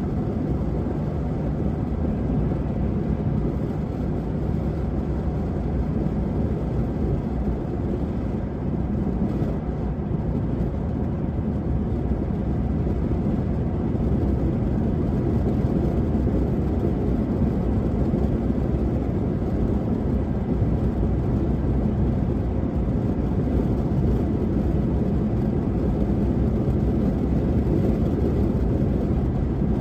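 Car cabin noise while driving at highway speed: a steady low drone of tyres on the road and the engine, unchanging throughout.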